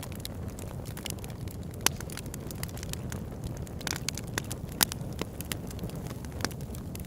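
Campfire crackling: frequent sharp pops and snaps of burning wood over a steady low rumble, with two louder pops about two and five seconds in.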